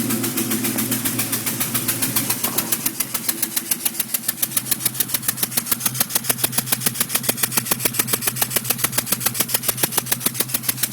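2002 Ford Mustang GT's 4.6-litre V8 idling with a loud, rapid, evenly spaced popping tick that grows sharper after a couple of seconds. This is the sign of a spark plug blown out of its threads in the third cylinder on the passenger side, with combustion gas escaping through the open plug hole on every firing.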